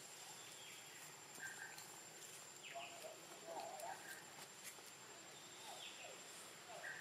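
Faint forest birdsong: a short whistled note repeated every two to three seconds, with falling whistles and a few small chirps between, over a thin steady high tone.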